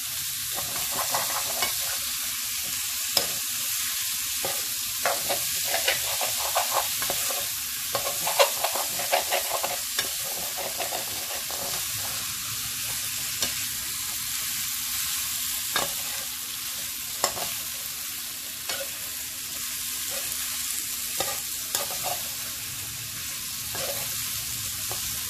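Mixed vegetables frying in spices in a metal kadai, sizzling steadily, while a slotted metal spoon stirs them, scraping and knocking against the pan now and then.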